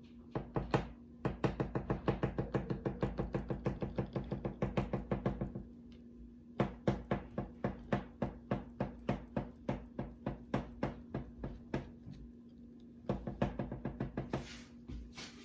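A knife chopping down through cake onto the board beneath, cutting out a number shape: quick runs of sharp taps, several a second, broken by short pauses.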